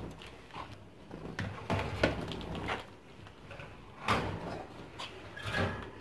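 A plastic bowl is handled and set inside a wire bird cage, giving a series of separate knocks and rattles, the loudest about two seconds in and again about four seconds in.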